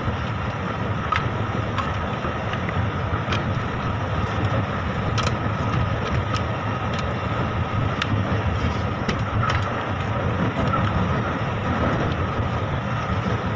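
Steady machinery noise throughout, with scattered light clicks and taps as the terminal screws of an electrical contactor are tightened with a hand tool.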